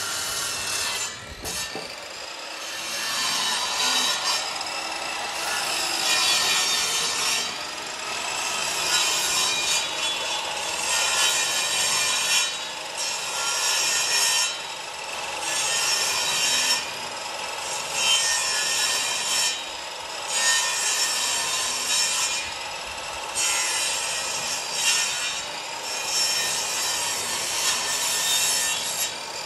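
A table saw's blade cutting into the end of a round wooden beam as the beam is turned against it, trimming it to a smaller diameter. The cutting noise is continuous and eases off briefly every few seconds.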